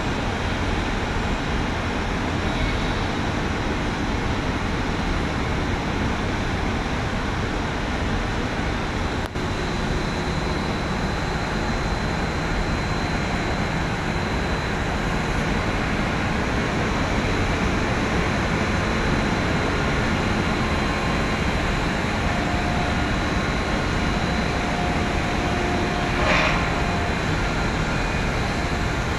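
Steady din of bulk-cargo discharge machinery: ship's cranes and a quayside hopper handling raw sugar, with one short louder sound near the end.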